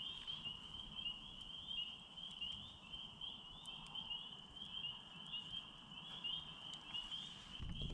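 Faint nighttime chorus of calling animals: a steady high-pitched trill pulsing several times a second, with a few soft clicks.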